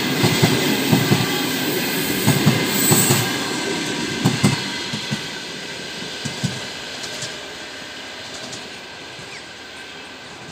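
Wheels of a passenger train's coaches clacking over rail joints, a rhythm of knocks that fades away as the last coach recedes. A brief high squeal comes about three seconds in.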